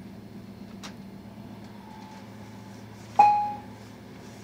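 Steady low running hum inside an Intercity passenger coach as the train rolls along, with a faint click or two. About three seconds in comes a sharp metallic clink that rings briefly.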